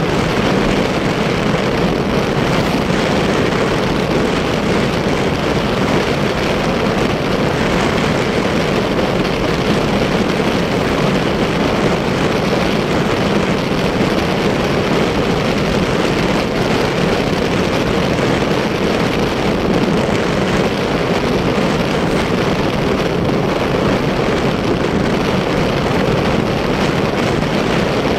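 Steady rush of wind over the microphone mixed with the drone of a motorcycle engine while riding along at an even speed.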